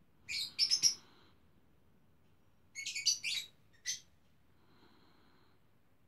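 Small curly-coated dog snoring in its sleep: short, high-pitched rasping snorts in two clusters about two and a half seconds apart, one breath to each cluster, with a fainter breath near the end.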